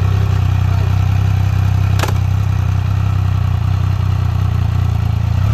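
Triumph Speed Triple's three-cylinder engine idling steadily, with a single sharp click about two seconds in.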